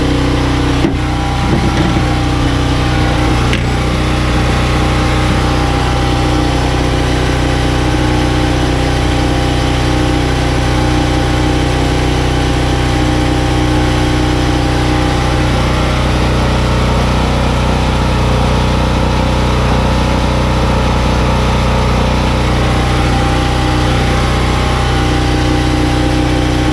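An engine running steadily at idle, a constant hum that does not change speed. A couple of brief knocks sound about a second in.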